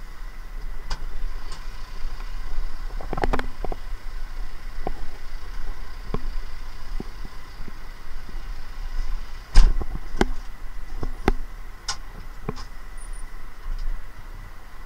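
Kubota MZ755 tractor's diesel engine running with a steady low rumble, heard from inside the cab while driving. Irregular sharp knocks and rattles from the cab come on top, the loudest about ten seconds in.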